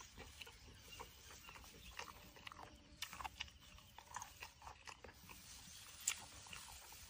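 A person chewing food close to a clip-on microphone: faint, irregular crunching and mouth clicks, with a sharper click about six seconds in.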